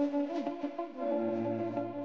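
Background music of held, sustained chords; a low bass note comes in about a second in.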